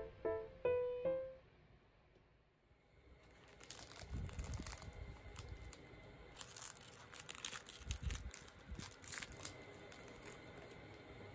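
A few closing notes of a piano-like tune end about a second in. After a short pause, a clear plastic wrapper and a paper wrapper crinkle and rustle, with sharp crackles, as they are pulled open by hand to unwrap a small cake.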